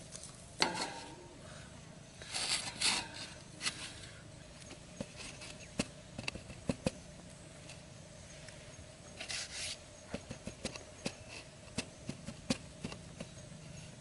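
Hands scraping and pressing dry sandy soil around a PVC pipe set in the ground, in a few short scrapes with scattered light taps and clicks.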